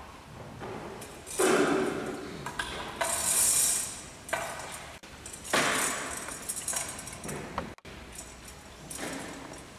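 Several separate clinks and knocks of glass or metal vessels, a second or two apart, each ringing briefly: typical of Communion vessels (chalice and ciborium) being cleared and cleansed on the altar.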